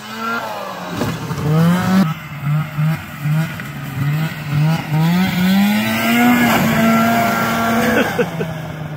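Snowmobile engine revving: the throttle is blipped in short bursts about twice a second, then held in a long pull that rises in pitch and stays up before dropping off near the end.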